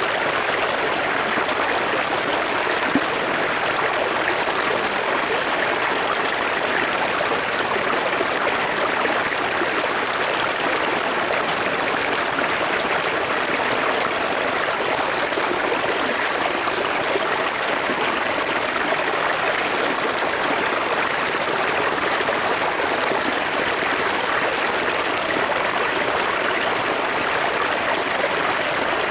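Forest river flowing steadily, an even, unbroken rush of running water.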